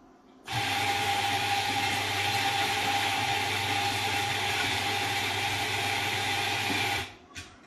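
Electric coffee grinder running steadily for about six and a half seconds, grinding a dose of espresso beans into a portafilter, starting and cutting off sharply. A light tap follows just after it stops.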